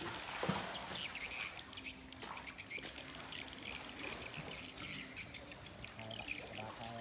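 Crocodiles shifting in a shallow farm pool, water splashing and dripping in short bursts, with repeated short high chirping calls throughout.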